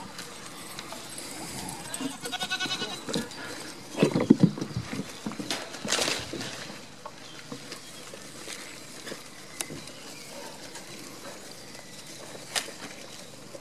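Goats bleating: a high, wavering call about two seconds in, then a lower, louder one about four seconds in.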